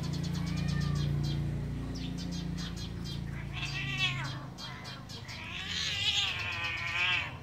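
Orange cat meowing: a short meow about halfway through, then a longer, louder drawn-out yowl near the end.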